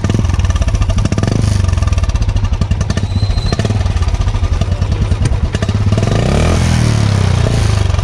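Royal Enfield Classic 350's single-cylinder engine running through an aftermarket Indori-style silencer, a quick steady stream of exhaust beats with a note that is not very bassy. It is blipped once about six seconds in, the pitch rising and dropping back.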